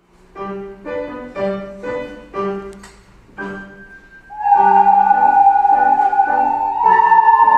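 Ocarina performance over piano accompaniment. The piano plays about six short introductory chords, then the ocarina enters about four seconds in with a long held note and steps up to a higher held note near the end.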